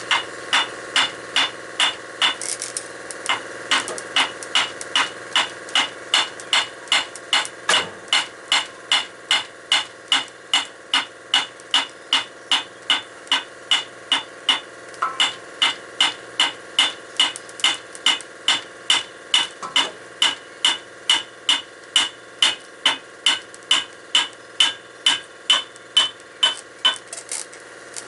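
Hammer blows on the big truck's driveshaft U-joint, working it loose to free the joint. The blows are steady and evenly paced, about two a second, and stop shortly before the end.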